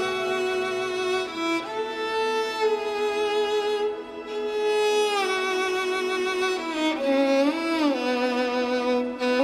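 Music: a slow melody played on a bowed string instrument such as a violin, holding notes and sliding smoothly between them, over a soft lower string part, with no drums or beat.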